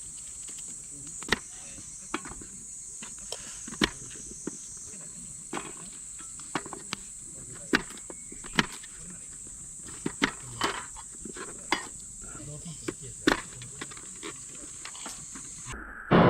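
Wood campfire crackling with irregular sharp pops, over the steady high chirring of insects. Music cuts in just before the end.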